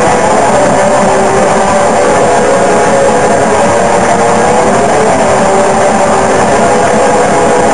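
Black metal recording playing: a loud, unbroken wall of distorted electric guitars over drums.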